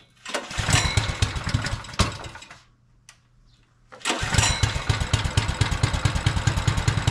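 Brand-new 212cc single-cylinder mini bike engine on its first start: it fires and runs roughly for about two seconds, then dies. It catches again about four seconds in and settles into a steady, even run.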